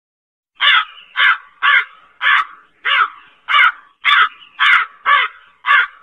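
Crow calling a rapid run of about ten harsh caws, about two a second, starting about half a second in.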